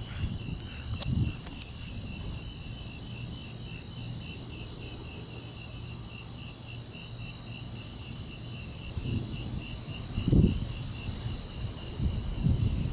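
Crickets chirping in a steady pulse, about three chirps a second, over a continuous high insect trill. A short low rumble comes about ten seconds in, and more low rumbling near the end.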